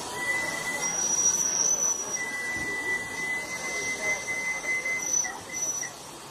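A miniature steam railway train giving long, high-pitched squealing tones that break off and restart, over a steady hiss of noise.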